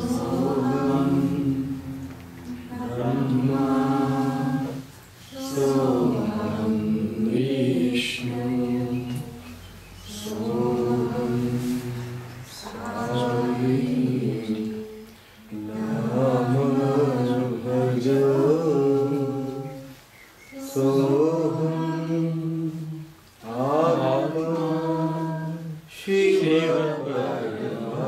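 Unaccompanied devotional singing of a bhajan: voices sing about ten phrases of two to three seconds, each followed by a short pause.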